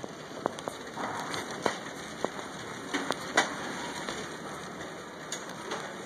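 Scattered sharp clicks and clacks of small hardware being handled on store shelves, over a steady background hiss.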